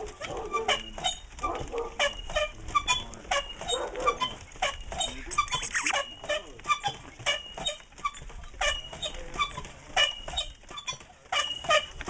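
Sled dogs barking and yelping in quick, short calls, several a second, with one rising yelp about halfway through.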